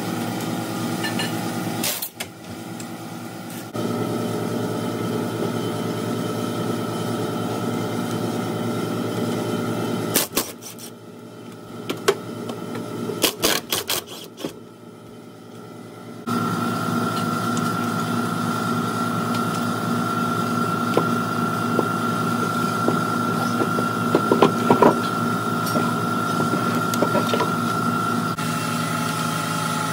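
A steady mechanical drone throughout, with several short bursts of a cordless impact wrench between about 10 and 15 seconds in and a couple more near the end.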